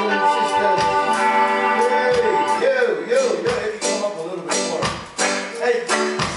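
Live roots reggae band playing, with a man singing over guitar, keyboard chords and regular drum hits.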